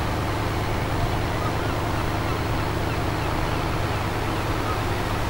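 Boat engine running at a steady low hum while the boat cruises, under a steady wash of water and wind noise.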